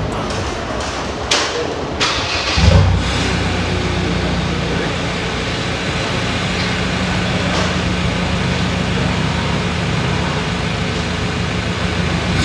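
Ford Ranger Wildtrak 2.2-litre four-cylinder turbo-diesel started up through its new full stainless-steel exhaust and custom downpipe. After a couple of clicks it catches about two and a half seconds in and settles into a steady idle.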